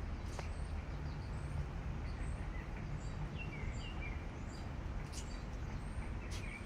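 Steady outdoor background noise with scattered faint bird chirps.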